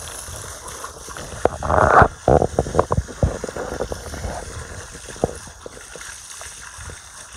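Water from a garden hose spraying onto a puppy and splashing on wet concrete, with a run of louder splashes about two to three seconds in.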